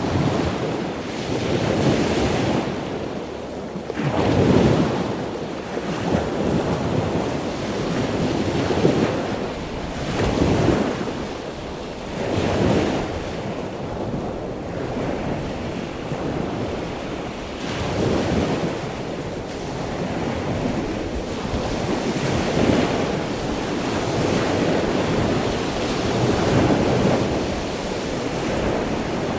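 Ocean waves washing ashore, one swell after another every couple of seconds, with wind noise on the microphone.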